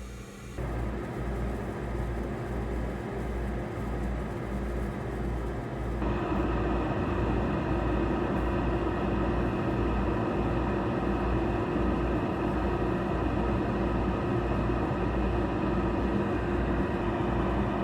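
Hot air rework station blowing a steady stream of hot air, a constant rushing hiss with a hum under it. It starts about half a second in and gets louder about six seconds in.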